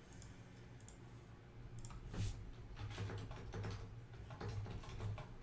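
Faint computer keyboard typing and clicking, irregular clicks starting about two seconds in, over a low steady hum.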